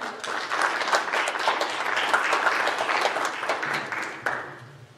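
Congregation applauding: a dense patter of many hands clapping that dies away about four seconds in.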